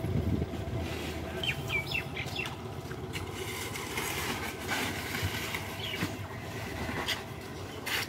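Small truck engine idling with a steady low hum. Birds chirp briefly about one and a half to two and a half seconds in, and a few short shovel scrapes come in the second half.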